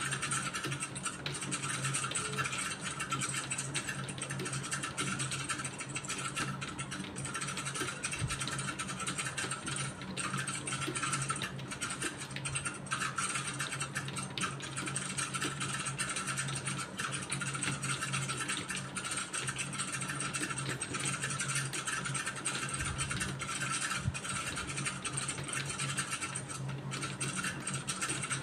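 Continuous typing on a computer keyboard: a steady, unbroken stream of key clicks.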